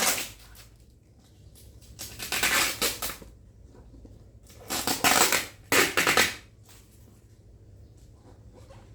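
Packaging of a new overlock sewing machine being pulled and crinkled open, in two loud bursts: one about two seconds in and a longer one about five seconds in.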